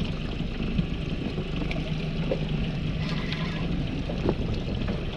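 Wind on the microphone and water lapping around a small fishing boat, a steady noisy background with a faint low hum and a few light clicks.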